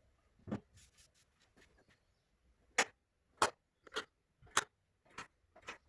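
About seven light, sharp knocks and clicks, irregularly spaced, of objects being handled on a workbench.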